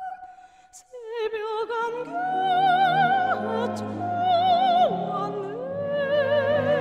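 Background classical music in an operatic style: a melody of long held notes with a wide, even vibrato over low sustained accompaniment. It fades almost to nothing for a moment about half a second in, then comes back.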